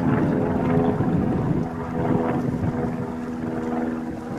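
A steady motor hum with several even tones, and wind rumbling on the microphone.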